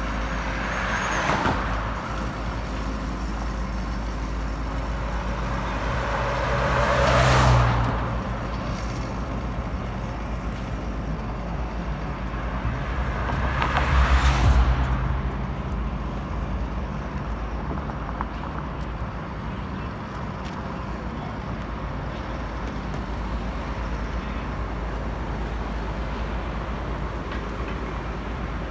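Road traffic: a steady low rumble with vehicles passing by, the loudest passes about 7 and 14 seconds in.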